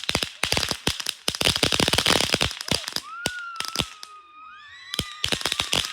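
Fireworks crackling in a rapid, dense string of sharp cracks for about three seconds. Then come several high whistling tones that glide in pitch, and a few more cracks near the end.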